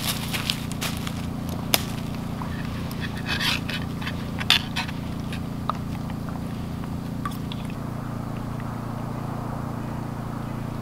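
A dog moving about in dry forest leaf litter: scattered rustles and light crunches in the first few seconds, thinning out as it settles, over a steady low background hum.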